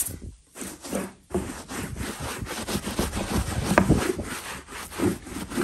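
Small hand brush scrubbing velour sofa upholstery in quick back-and-forth strokes, working in a sprayed-on carpet cleaner. The strokes come in short bursts at first and run on almost without a break from about a second in.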